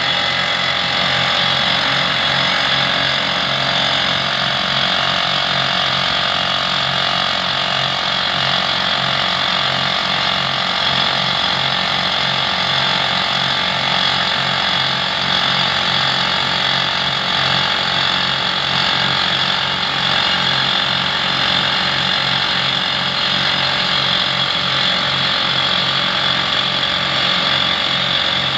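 Pneumatic rock drill running without a break: rapid, even hammering under a loud hiss of air.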